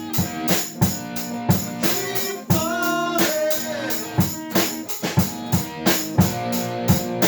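Rock band playing an instrumental passage between sung lines. A drum kit keeps a steady beat, about two hits a second, under guitars, with a bending note about three seconds in.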